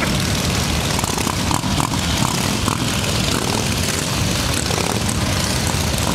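Engines of a large pack of cruiser motorcycles running together in a steady, loud rumble as bikes idle and roll slowly away.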